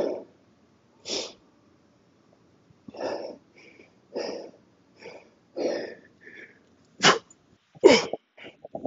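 A man's heavy, forceful breathing from the effort of swinging a 48 kg kettlebell: sharp exhales about once a second, getting louder near the end, with a couple of voiced grunts as the swings start again.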